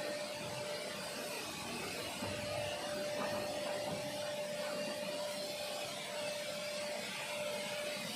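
Vacuum cleaner running steadily with a constant whine over a rushing noise, its nozzle being pushed over synthetic grass turf.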